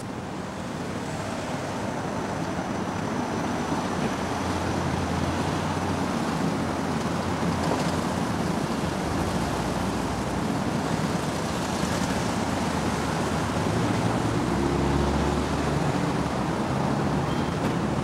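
Street traffic noise: a steady rush of passing cars, with a low engine rumble swelling as a vehicle goes by about a quarter of the way in and again near the end.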